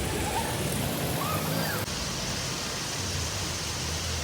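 Heavy rain falling, a steady even hiss. The sound changes slightly about two seconds in.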